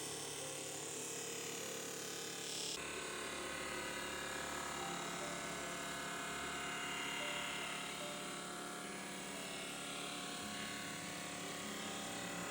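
A machine's electric motor running steadily with a buzzing hum. The tone changes abruptly about three seconds in.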